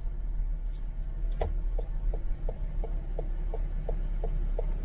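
Car turn-signal indicator ticking, about three clicks a second, starting about a second and a half in, over the steady low rumble of the car driving.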